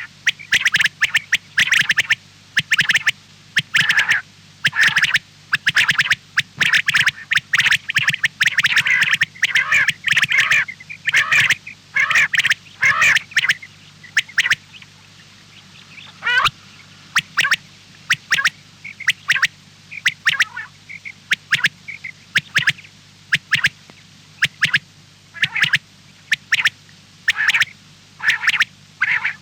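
Birds squawking in many short, rapid calls over a low steady hum. The calls come thickly at first, then thin out, with one sweeping call about halfway through.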